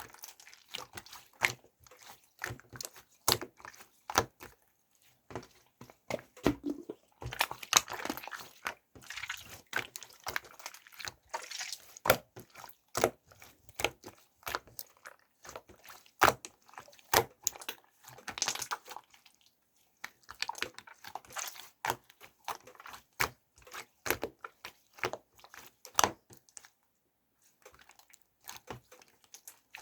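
Irregular sticky clicks, crackles and squishes of a soft material being pressed and worked by hand on a wooden board, with a pause of a second or two near the end.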